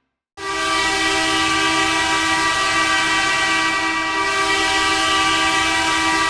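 Hockey arena goal horn blasting, starting abruptly about half a second in and then holding a loud, steady, many-toned blare.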